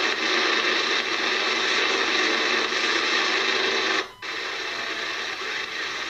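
Steady receiver hiss and static from the Kenwood TS-850S transceiver's speaker as it is tuned down through the 7 MHz band with its hand-turned tuning encoder. About four seconds in the noise cuts out for a moment, then comes back a little quieter.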